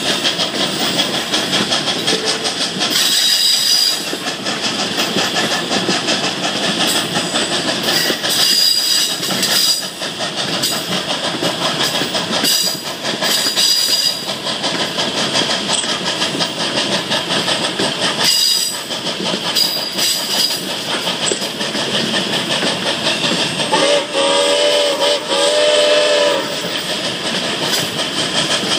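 Steam-hauled passenger train heard from an open car window: the steady rumble and clatter of the cars' wheels on the rails, with short high wheel squeals every few seconds on the curve. Near the end the steam locomotive's whistle blows for about two and a half seconds.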